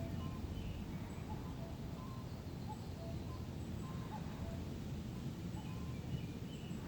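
Forest ambience: scattered short, faint bird chirps at several pitches over a steady low rumble of wind.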